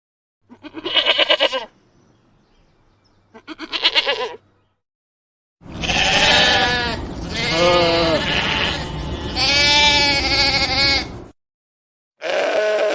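Lambs bleating: two short bleats in the first few seconds, then a longer run of several bleats over a low background rumble, and another bleat near the end, with dead silence between the pieces.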